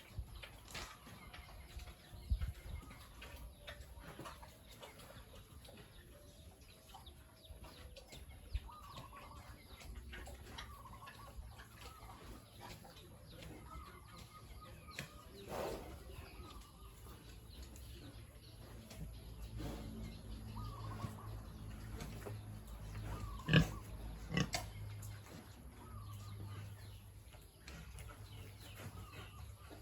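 Pigs calling in a pen: many short calls throughout over a low background rumble, with scattered sharp knocks, the loudest about 23 seconds in.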